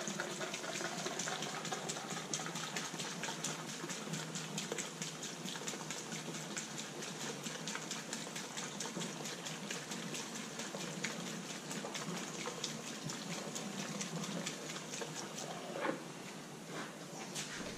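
Gasoline pouring from a plastic gas can through a funnel and hose into a car's fuel tank: a steady gush of liquid that eases off about sixteen seconds in.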